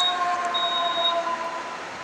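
Building fire alarm sounding a high, steady beep in the three-pulse evacuation pattern: the end of one beep, a full beep, then the longer pause before the next set. Beneath it, a siren winds slowly down in pitch.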